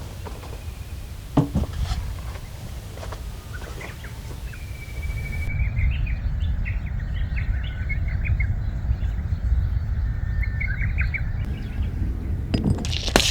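Small birds chirping and calling in short bursts over a steady low outdoor rumble.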